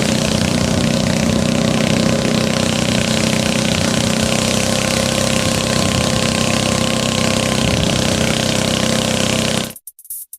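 An engine running steadily at an even speed, then cutting off abruptly near the end.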